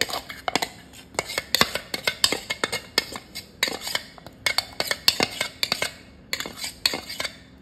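A metal spoon scraping and tapping inside a steel mixer-grinder jar as thick ground mung dal batter is emptied into a glass bowl: a run of irregular sharp clinks and knocks, several a second.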